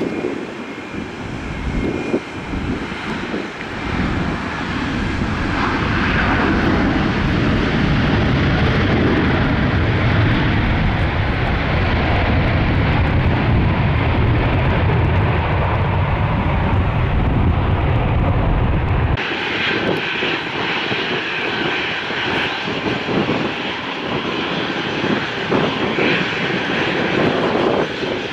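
Jet airliner engines rumbling as a plane passes, swelling over the first few seconds and holding strong. About two-thirds of the way through, the sound cuts abruptly to a thinner, hissier jet noise.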